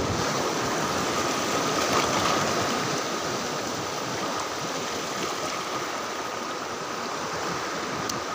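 Sea surf washing and churning over a rocky reef at the water's edge, a steady rushing of water.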